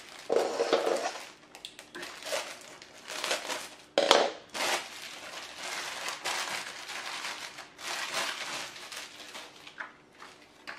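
Plastic packaging crinkling and rustling as wrapped items are handled and pulled from a cardboard box, with a single sharp knock about four seconds in.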